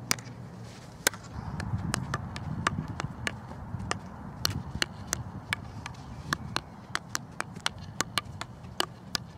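Field hockey stick striking the ball in sharp clicks: two louder hits about a second apart near the start, then quick close-control dribbling taps, about four a second, from about halfway in.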